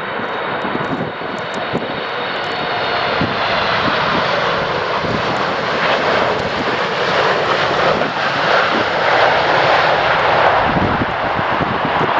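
Boeing 747-8 freighter's four GEnx turbofan engines, a steady jet roar growing louder as the aircraft comes in to land, with irregular low thumps of wind buffeting the microphone.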